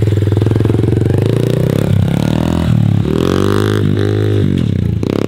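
Small clutchless four-speed pit bike engine revving hard as the bike pulls away. Its pitch climbs and then drops about three times in the second half as the rider shifts up through the gears.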